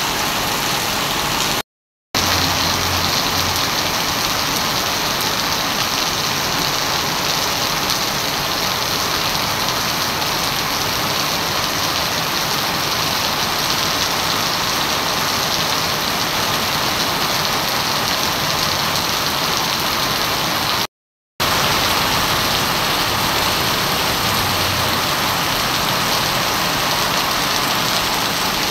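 Heavy rain pouring steadily onto a wet paved street and puddles, an even hiss. It drops out to silence for a split second twice.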